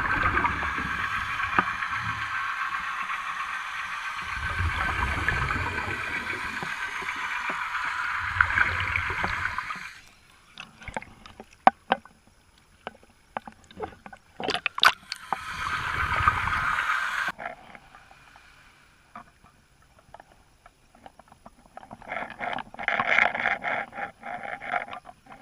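Underwater sound around a scuba diver: low gurgling bursts of exhaled bubbles over a steady hiss, then scattered clicks and pops, another short hiss, and a rattling burst near the end.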